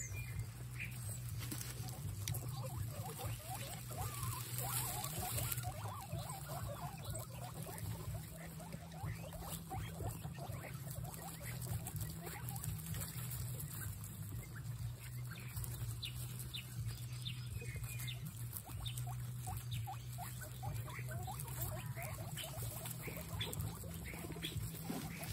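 Guinea pigs eating lettuce leaves together: a steady patter of munching and leaf rustling, with short soft squeaks scattered through.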